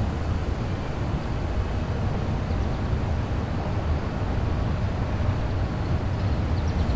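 Steady low rumble of wind buffeting a small camera microphone outdoors, with no distinct events.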